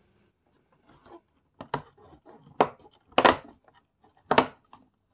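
Cardboard and plastic packaging of a LEGO advent calendar being opened by hand: four sharp rips or cracks roughly a second apart, with soft crinkling and rustling between them.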